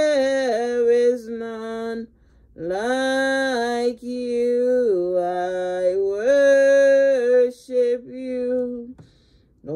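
Slow worship singing: a voice holds long notes with slow slides in pitch, in phrases of one to three seconds broken by short pauses.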